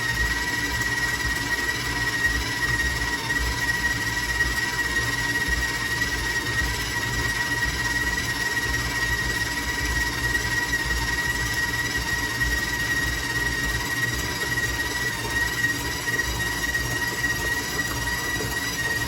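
Stand mixer running steadily with a constant high-pitched motor whine while it creams butter, cream cheese and sugar into a batter.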